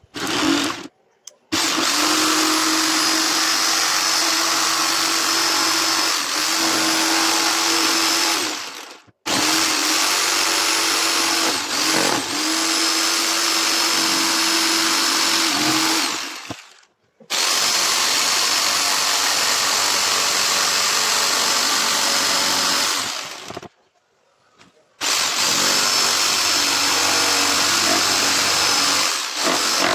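Handheld electric power tool cutting wood, its motor running at a steady speed in several runs of about seven seconds, each broken off abruptly by a short silence.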